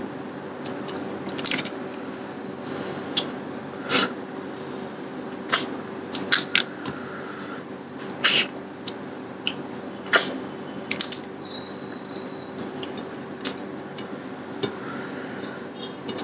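Close-up eating sounds of a man eating snail curry and rice by hand: irregular wet lip smacks, sucking and chewing noises, about a dozen sharp ones, over a steady low hum.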